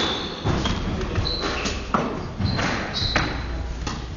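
Racket-and-ball rally sounds: a series of sharp hits of the ball off rackets and the court, spaced roughly half a second to a second apart, with short high squeaks between them.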